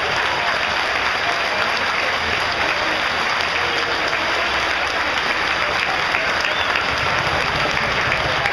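Stadium crowd applauding with steady, dense clapping as a fallen speedway rider gets back on his feet after a crash.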